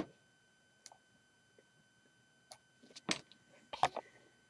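Faint handling noise: a few scattered soft clicks and knocks, the loudest two near the end, as the camera is moved and refocused. A faint steady high whine runs underneath.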